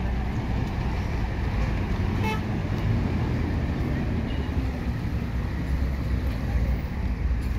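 City street traffic: a steady low rumble of passing vehicles, with one short vehicle horn toot about two seconds in.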